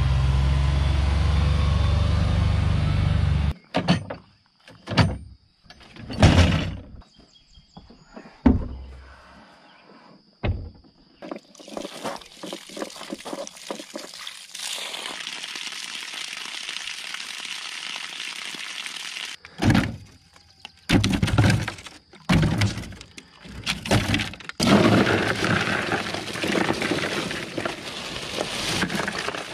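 A steady low rumble cuts off about three and a half seconds in, followed by scattered knocks and thuds. Water then runs out of a plastic cooler's drain spout onto gravel, and near the end ice cubes are poured into the cooler, clattering over bottled water.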